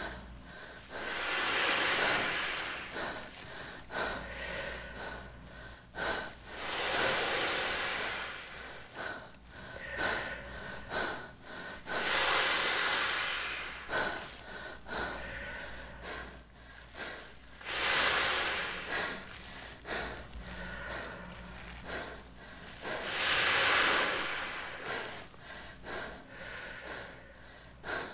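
A man blowing long, hard breaths by mouth into a large plastic bag to inflate it, one exhale about every five to six seconds, five in all, with quieter breathing in between.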